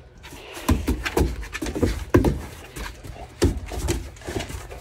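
Great Dane puppies playing rough, panting, with irregular bumps and scuffles from their wrestling.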